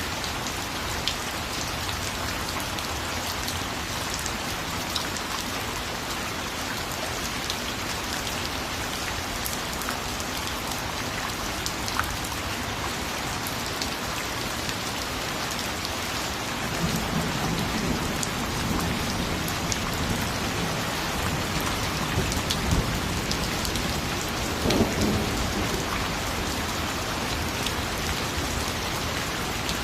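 Steady rain falling, a dense hiss with scattered individual drop ticks. A bit past halfway through, a low rumble of thunder rolls in and swells again about three-quarters of the way through.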